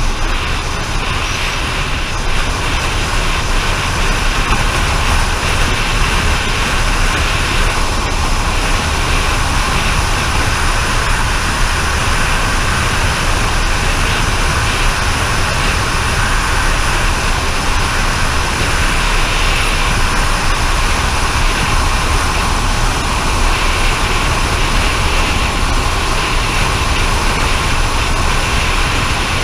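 Steady rush of wind and road noise from a vehicle travelling at speed, with a constant low rumble underneath.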